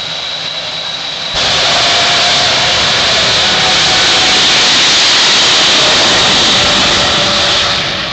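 Jet engines of the Shockwave jet truck running at the starting line with a steady high whine, then jumping suddenly to full power with afterburner about a second and a half in as the truck launches, a loud rushing jet noise that eases off near the end as it runs away down the strip.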